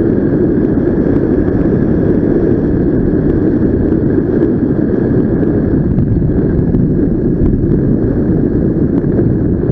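Wind rushing over the microphone of a paraglider pilot in flight: a steady, loud rush of wind noise.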